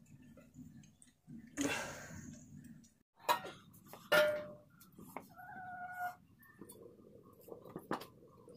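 Metal cooking pots and plates being handled, giving a few sharp clinks and knocks, one followed by a short ringing, and a held ringing tone for about a second near the middle.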